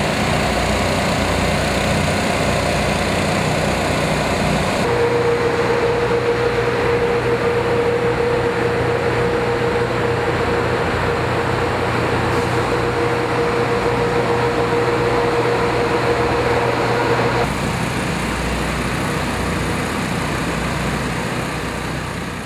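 Steady machine drone of large restoration blowers forcing air through flexible ducts. The sound shifts abruptly about 5 seconds in to a drone with a steady whine and hum, and shifts again about 17 seconds in.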